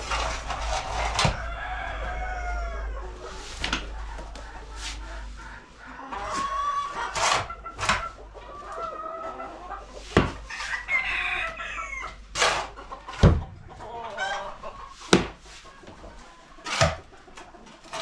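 Chickens clucking, with a rooster crowing, and several sharp knocks among the calls.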